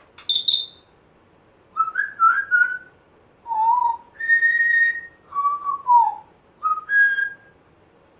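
African grey parrot whistling a string of short, clear notes, with one longer steady note around the middle and several that bend downward in pitch.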